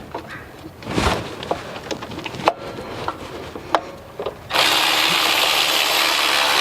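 Hand-tool work on the replacement power steering pump's mounting bolt: scattered clicks and metal knocks of a socket wrench, then about four and a half seconds in a steady, loud rasping noise that lasts about two seconds.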